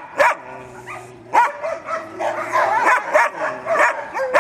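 Canine barking and yelping: a few short, sharp barks, and a run of wavering yelps and whines through the middle.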